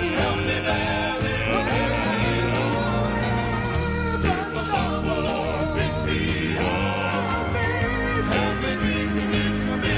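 Southern gospel male quartet singing in four-part harmony with piano accompaniment, holding long notes with vibrato.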